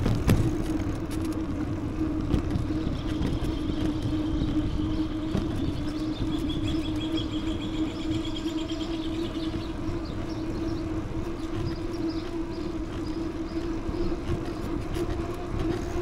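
Street ambience during a bicycle ride, with wind rumbling on the microphone. A steady mid-pitched hum runs under it, and a faint high whistle comes in about three seconds in and fades around ten seconds.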